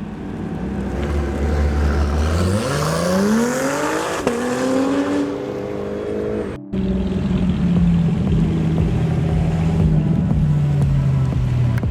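Sports car engine revving up as the car accelerates away, its pitch climbing with one gear change partway through. After an abrupt cut, another engine runs at a steady pitch that slowly falls.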